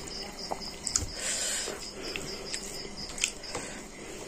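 Close-up chewing and mouth sounds of someone eating rice by hand, with small wet clicks and a brief rustle as fingers squeeze the rice. A faint high, evenly pulsing chirp, like an insect, runs in the background.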